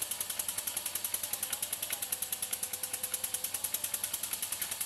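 Small model steam engine running steadily under load while it drives a belted dynamo, with a rapid, even mechanical beat of well over ten strokes a second. A faint whine is present for a couple of seconds near the middle.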